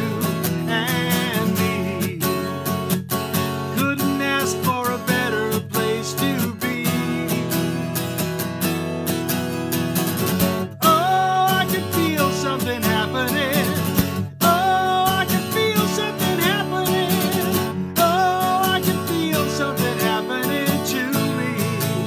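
Man singing to a strummed acoustic guitar; his held notes waver with vibrato.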